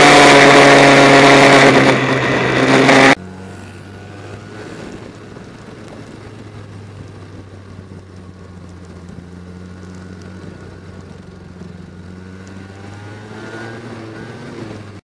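Go-kart engine running at speed, picked up by an onboard camera, loud and steady. About three seconds in it cuts abruptly to a much quieter, steady engine hum from a second kart's onboard camera, with faint rising revs near the end.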